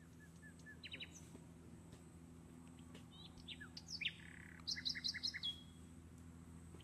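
Birds chirping and calling: short whistled notes and quick down-slurred chirps, with a fast run of about five chirps ending in a held whistle near the end, over a faint steady low hum.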